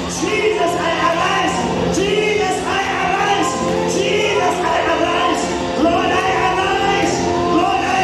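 Live gospel worship song: a man singing lead into a handheld microphone, with a woman's backing vocal and keyboard accompaniment through the PA.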